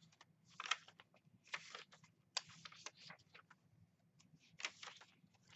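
Paper pages of a handmade junk journal being turned and handled: a string of soft, irregular rustles and flicks.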